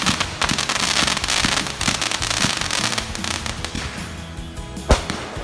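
Fireworks going off: a dense crackling barrage that thins out after about three seconds, then a single sharp bang near the end.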